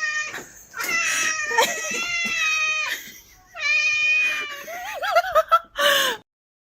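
A cat meowing insistently: two long, drawn-out meows, then a quick run of short chirping meows and a final meow that falls in pitch before the sound cuts off.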